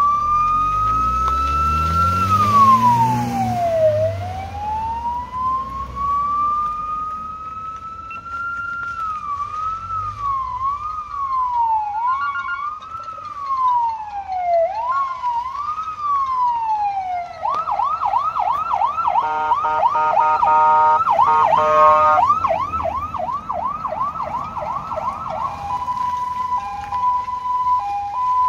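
PA300 electronic siren running through its tones: a slow wail rising and falling, then quicker, uneven up-and-down sweeps, then a rapid yelp from about two-thirds of the way in. Near the end it changes to a tone alternating between two pitches.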